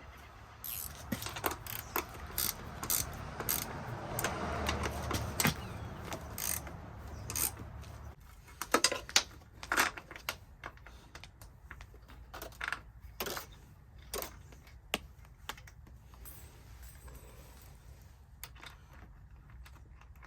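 Hand ratchet clicking in runs with metal hardware clinking, as bolts are cranked down to pull knurled nut inserts into the hinge mounting. The clicking is dense at first, with a few louder metal knocks about nine seconds in.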